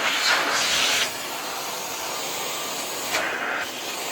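Central vacuum drawing air through an accessory hose and wand, a steady rushing hiss. It is louder for about the first second, then settles to an even level.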